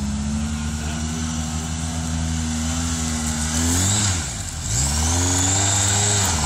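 Off-road trial 4x4's engine running steadily under load; about four seconds in the revs dip and then climb again, settling at a louder, higher pitch.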